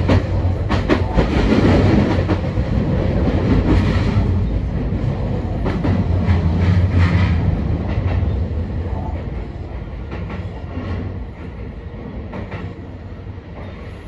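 Sotetsu 20000 series electric train heard from the cab, its wheels clicking and clattering over the pointwork into a station. The running noise dies down through the second half as the train brakes to a stop at the platform.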